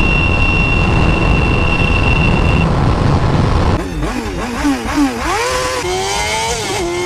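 Motorcycle under way with a heavy rushing noise and a steady high whine that stops a few seconds in. Then the engine is revved up and down several times and its pitch climbs steadily as it accelerates.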